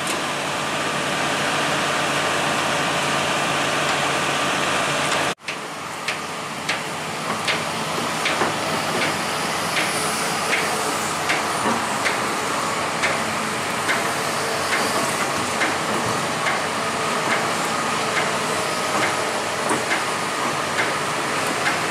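Diesel engines of Hitachi hydraulic excavators running steadily under work. The sound drops out for an instant about five seconds in. After that a regular clicking, about one tick every 0.7 seconds, runs over the engine noise.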